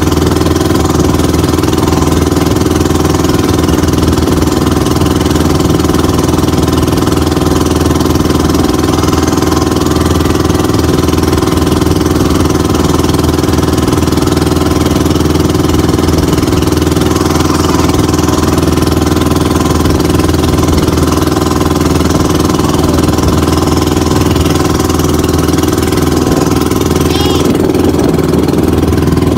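Outrigger boat's (bangka's) engine running steadily underway, with wind and water rushing past the boat.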